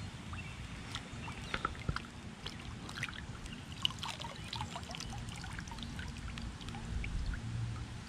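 Water dripping and trickling off wet gloves and a muddy find into a shallow river: many small scattered plinks and drips over a steady low rumble.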